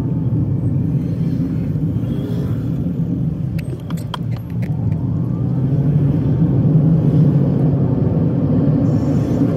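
Car engine and tyre rumble heard inside the cabin while driving, growing louder a little after halfway as the car picks up speed. A short cluster of light clicks comes about four seconds in.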